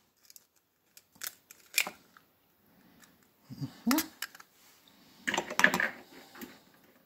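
A hen's egg being cracked by hand over a plastic egg separator: two sharp taps of the shell about a second and two seconds in, then a denser crackle of clicks near the end as the shell is pulled apart and the egg drops into the separator.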